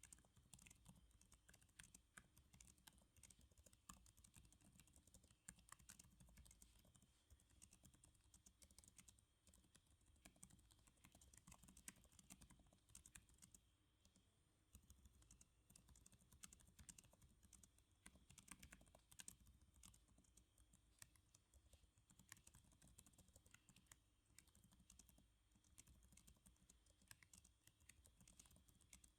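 Faint, continuous typing on a computer keyboard: an uneven run of quick, soft key clicks.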